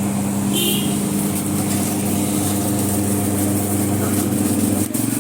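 Steady low mechanical hum of a running motor, its pitch shifting slightly near the end.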